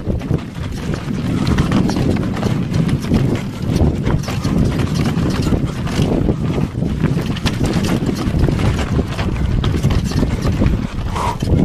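Mountain bike rattling over a rocky dirt trail on a fast descent: tyres crunching on loose rock under a steady clatter of small knocks.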